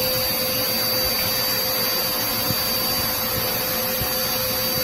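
Dirt Devil Power Duo upright vacuum cleaner's motor running steadily with a constant whine.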